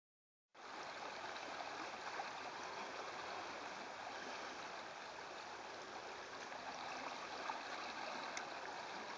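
River current flowing, a steady even rushing that starts about half a second in.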